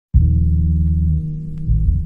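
Music intro: deep, sustained bass notes that start abruptly and shift in pitch about a second in.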